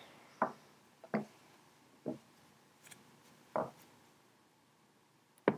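About five sharp knocks and bumps of objects being handled and shifted on a wooden table, irregularly spaced, the loudest one near the end.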